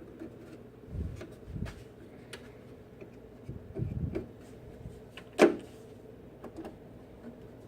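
Small handling noises while belt residue is scrubbed off a turntable's spindle with a cotton swab: light taps and low bumps, with one sharp click about five and a half seconds in, over a faint steady hum.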